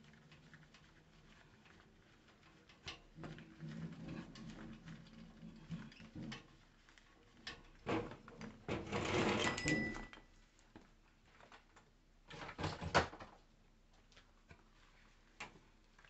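A wooden bird-cage toy with dangling wooden blocks clacks and knocks against itself and the metal cage bars as it is unhooked and lifted out, with scattered clicks. There are two longer spells of scraping and rustling, about nine and about twelve and a half seconds in.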